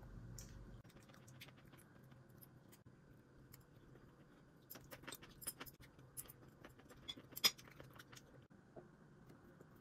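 Faint, scattered clicks and clinks of small hard objects being handled, busiest in the middle and with the sharpest click about seven and a half seconds in, over a low steady hum.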